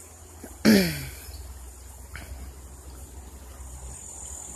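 Insects droning steadily at a high pitch. About a second in comes a single brief, loud sound that drops in pitch.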